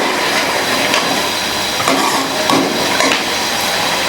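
Chicken and softened tomatoes sizzling in a cooking pot, with a metal spoon scraping and knocking against the pot a few times as the mixture is stirred.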